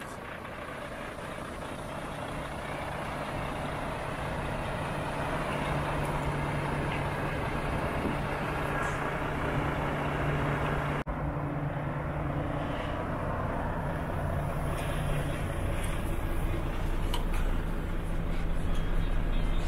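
Volvo FH4 500 tractor unit's 13-litre six-cylinder diesel idling with a steady low hum, growing gradually louder.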